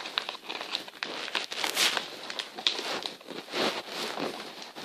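A sheet of paper being folded and creased by hand: irregular rustling and crinkling with short taps and scrapes, and a louder swish a little under two seconds in.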